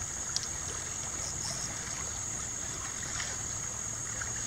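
Steady riverside ambience: water flowing in a shallow river, with a constant high-pitched insect drone and a few faint clicks.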